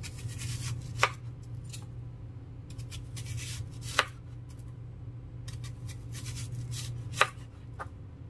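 A chef's knife slicing a whole onion into rounds on a wooden cutting board: a crisp crunch as each cut goes through, ending in a sharp knock of the blade on the board, three times about three seconds apart. A steady low hum runs underneath.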